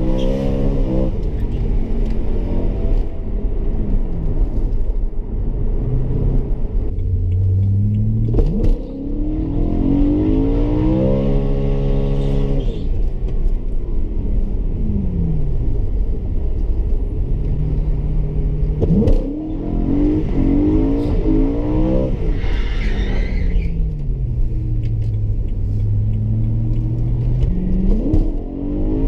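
BMW car engine accelerating hard through the gears, heard from inside the cabin. The pitch climbs with each rev and falls away at every upshift, in several pulls one after another.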